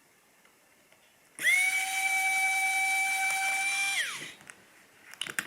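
A mini cordless electric screwdriver's motor whining as it spins, coming quickly up to a steady high pitch, running for about two and a half seconds, then dropping in pitch as it stops. It is driving a tiny screw out of a small electronic device.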